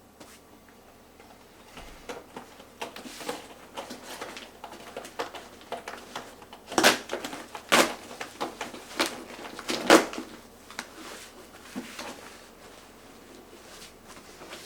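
A cardboard camera box and its packaging being handled and opened by hand: a run of rustles, scrapes and small clicks, with a few sharper knocks in the middle.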